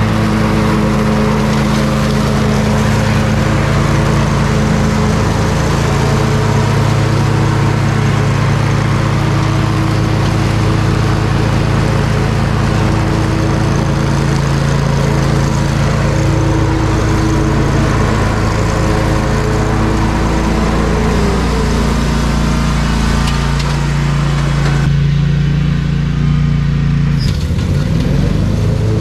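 Bad Boy ZT Elite zero-turn mower's engine running steadily at mowing speed, with its cutting deck working the grass. The sound is loud and even throughout.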